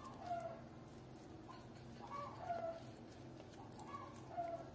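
Faint clucking of chickens, a handful of short calls spread through, over a steady low hum.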